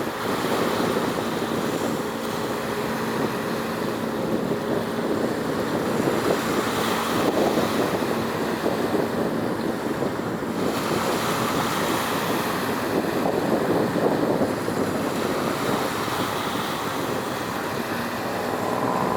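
Wind rushing over the microphone with water noise from the sea, and a faint steady engine hum underneath.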